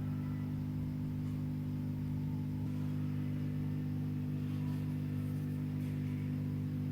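Steady low electrical hum of a hot-air rework station running while a part is heated off a phone circuit board, even and unchanging throughout.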